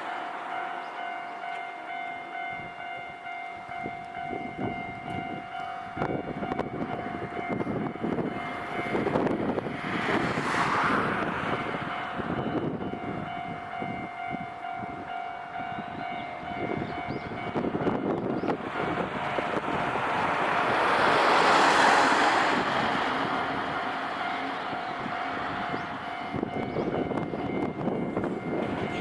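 Japanese level-crossing warning bell ringing steadily while a Nankai Kōya Line train runs through the crossing. The train is loudest about three-quarters of the way through.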